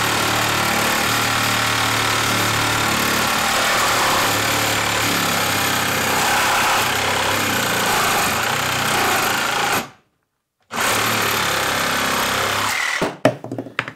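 DeWalt 20V XR compact brushless reciprocating saw with a Milwaukee carbide-tooth blade running steadily while cutting through a 4x4 post with six screws in it. The sound drops out for under a second about ten seconds in, resumes, and the saw stops about thirteen seconds in, followed by a few short clatters as the cut finishes.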